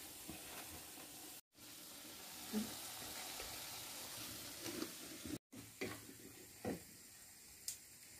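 Food sizzling in hot oil in a metal kadai over a wood fire, with a few light knocks in the pan. The sound cuts out briefly twice.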